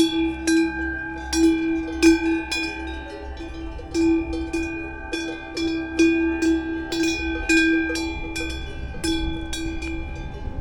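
Cowbells on grazing cattle clanking and ringing in an irregular, overlapping jangle, with no steady beat.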